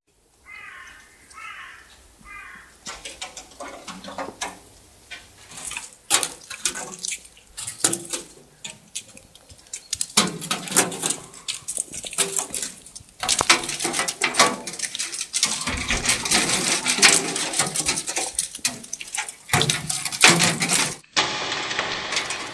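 Irregular tapping and knocking on a roof, sparse at first, then a dense, louder patter of clicks from about halfway through.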